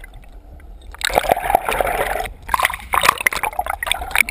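Water splashing and bubbling around a GoPro held at and just below the surface, muffled by the waterproof housing. It is quieter for the first second, then breaks into a quick run of crackling splashes.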